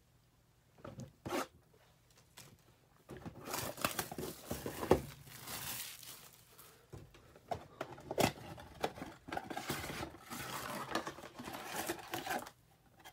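Cardboard trading-card mega box being torn open by hand, with rustling and crinkling of the packaging as the packs inside are pulled out. Two light taps come about a second in, and the tearing and rustling start about three seconds in.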